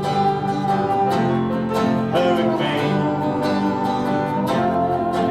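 Country-style song with plucked acoustic guitar playing an instrumental fill between sung lines.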